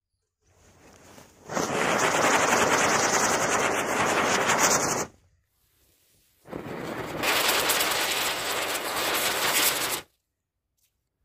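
Fireworks burning: ground spinner wheels (chakri) spraying sparks with a loud hiss and rapid crackle, in two stretches of about three and a half seconds, each stopping abruptly.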